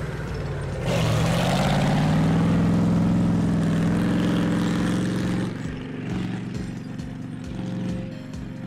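Military vehicle engine revving up about a second in, its pitch rising and holding, then settling back to a quieter, lower steady running note after about five seconds.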